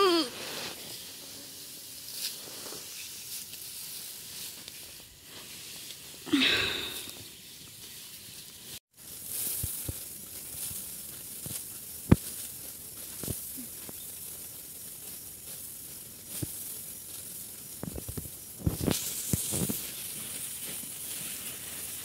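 Threshed rice grain rustling as a hand stirs it on a bamboo mat, then, after a cut, a steady high hiss of grain poured in a stream from raised baskets onto the mat to winnow it. The hiss grows louder near the end.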